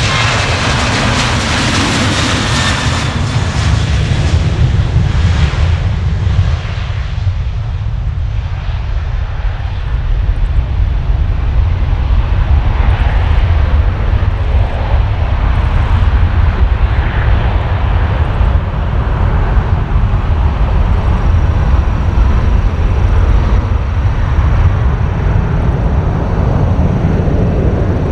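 Boeing 737-800's CFM56 jet engines running at takeoff thrust as the airliner rolls past and climbs away. For the first five or six seconds a high whine sits over the jet noise, then the whine fades and a deep rumble carries on.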